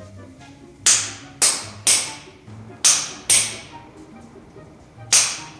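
Background music: sharp snare- or clap-like hits, most in pairs, over a stepping bass line.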